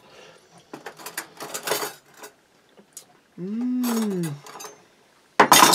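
A fork clicking and scraping on a paper plate of chicken pot pie, then a long appreciative 'mmm' from the man eating it, rising and then falling in pitch. A voice starts up loudly near the end.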